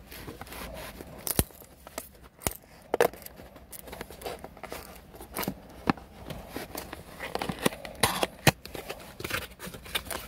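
Cardboard box and plastic packaging of a hair clipper kit being opened and handled: irregular crinkling and tearing with sharp snaps and clicks, the loudest snaps about a second and a half in, around three seconds, and near the eight-second mark.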